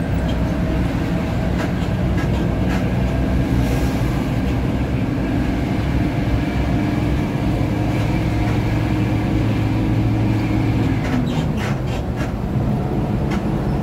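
Intercity bus running at road speed, heard from inside the cabin: a steady engine drone with road noise. About eleven seconds in the engine note drops, and a few sharp clicks follow near the end.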